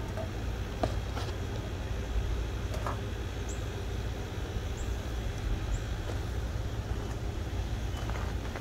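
Steady low background rumble with a few faint clicks in the first three seconds.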